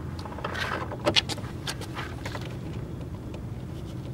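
Hand work on a car's plastic tail light assembly: a quick cluster of sharp clicks and clinks about a second in, then a few lighter ticks, over a steady low hum.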